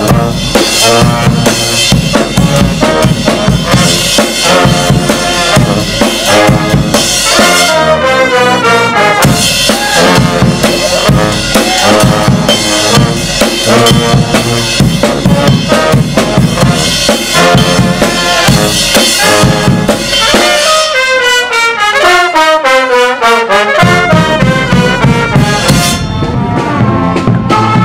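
Marching street brass band playing: trumpets, trombone and sousaphone over a bass drum and a snare-type drum with a steady beat. Near the end the drums stop for about three seconds while the brass plays a falling run, then the beat comes back in.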